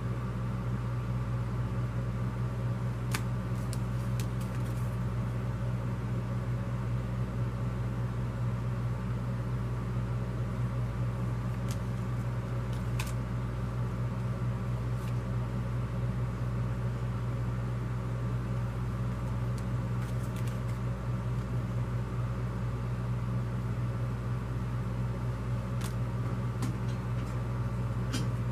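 Steady low hum throughout, with a few faint short taps and clicks of paper flyers and cards being handled on a table, the sharpest near the end.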